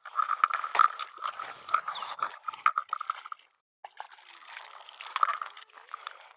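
A hooked trout being reeled in: a fishing reel cranked in quick clicking spells with water splashing, pausing briefly about three and a half seconds in.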